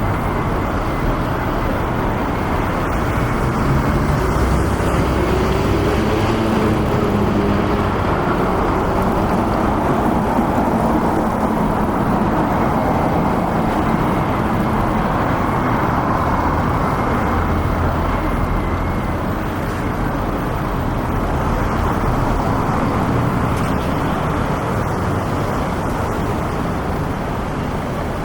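Steady city road traffic: cars and other motor vehicles running along a busy street. An engine's hum rises and falls in pitch between about four and ten seconds in.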